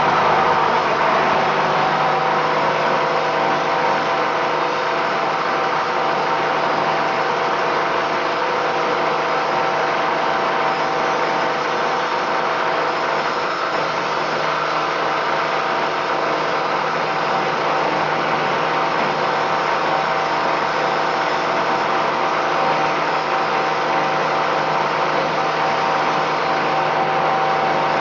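Plastic film agglomerator running steadily, its motor and rotor churning waste plastic, with a constant hum and an even rushing noise.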